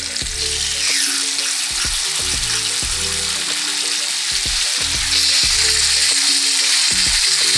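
Marinated lamb chops searing in a hot pan: loud, steady sizzling of fat and oil, which grows louder about five seconds in. Background music plays underneath.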